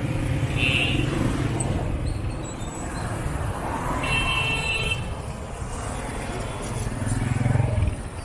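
Motorcycle and auto-rickshaw engines running close by in dense market-street traffic, one passing loudest near the end. A short high-pitched beep sounds about four seconds in.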